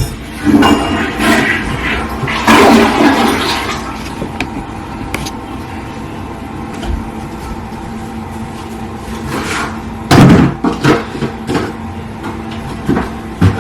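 Steady household hum with loud rushing, water-like surges near the start and several knocks and thuds later on.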